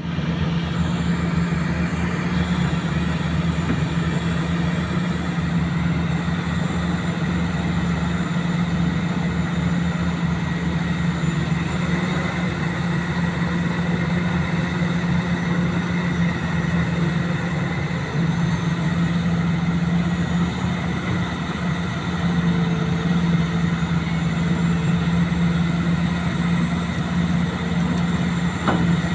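Vehicle engine running steadily with an even low hum on a test run after a fuel pump repair.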